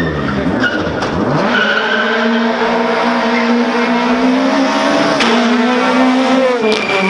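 Rally car engine revving: the revs dip about a second in, then climb and hold high and steady for several seconds before falling away near the end. A single sharp crack comes about five seconds in.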